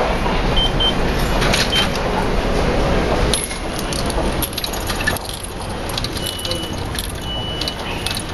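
Coins dropped into a ticket vending machine's coin slot, clicking and rattling, over a steady background noise. There are short electronic beeps near the start and a steadier high beep a little past the middle.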